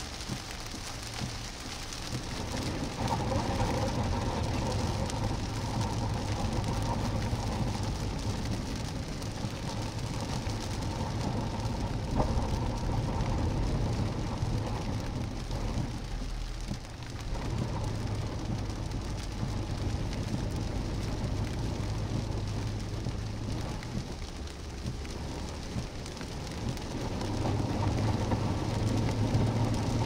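Heavy rain pelting a moving vehicle, heard from inside the cabin over the steady low rumble of the engine and tyres on a flooded road, swelling and easing a little in waves.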